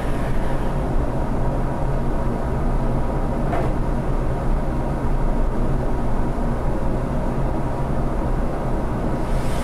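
Steady low drone of a workshop dust collector running through its flexible extraction duct, with one faint tick about three and a half seconds in.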